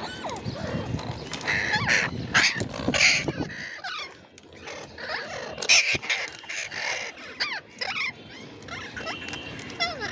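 Ringneck parrot calling: a rapid run of short squawks and chirps with quick up-and-down pitch glides.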